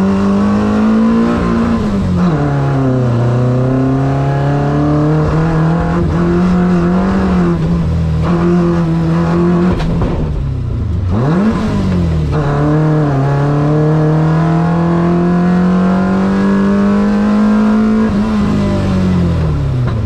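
Peugeot 106 race car's 1.4-litre four-cylinder engine under hard acceleration, heard from inside the stripped cockpit. The engine note rises, then drops sharply with each gear change or lift-off, a few times.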